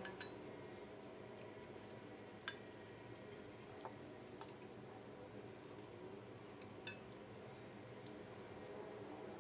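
A metal spoon clinking lightly against a ceramic pan and bowl while serving braised kimchi and pork: a few faint, sharp clicks over quiet room tone.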